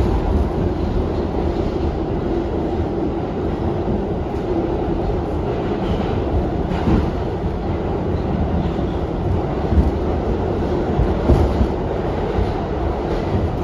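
R62A subway car running at speed, heard from on board: a steady rumble of wheels on rail, with a few sharp clicks as the wheels cross rail joints.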